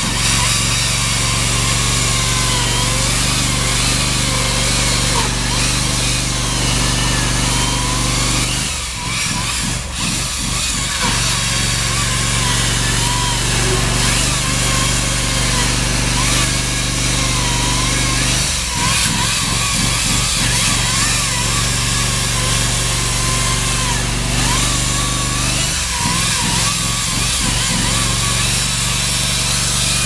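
Hydraulic ICS diamond chainsaw cutting through a concrete wall. Its whine wavers up and down in pitch as the chain loads and unloads in the cut, over a steady low drone that shifts a few times.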